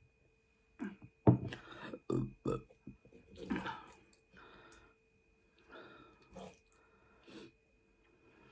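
A person burping after a drink, the loudest burp about a second in and more following over the next few seconds. Quieter eating sounds come after: chewing, and wooden chopsticks stirring pasta in a pan.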